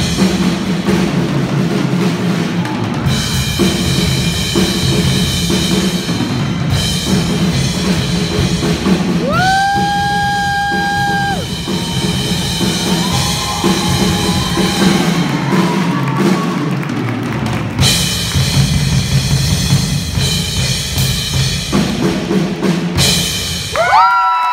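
A Pearl acoustic drum kit played live in a drum solo: bass drum, snare and toms in fast patterns with crashing, ringing cymbals. It stops just before the end as the audience starts cheering.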